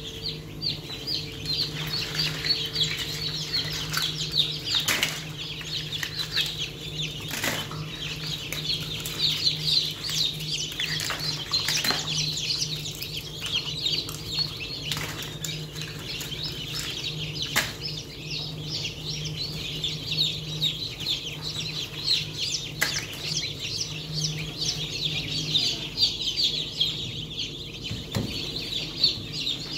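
A crowd of newly hatched chicken chicks peeping continuously, many short high cheeps overlapping, over a steady low hum. A few sharp knocks sound here and there.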